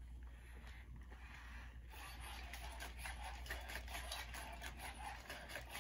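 Faint scratchy rustling of a hand stroking the plastic shell of a Sony Aibo ERS-1000 robot dog, starting about two seconds in.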